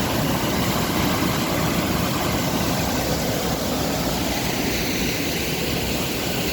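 Rushing water of a woodland waterfall and stream, a steady loud rush.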